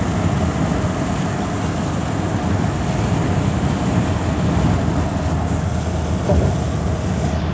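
Steady road noise inside a moving car's cabin on a rain-wet highway: a low rumble of tyres and engine under the hiss of water and rain on the windshield.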